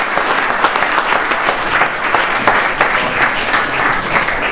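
An audience applauding, a dense patter of many hands clapping that starts to die down near the end.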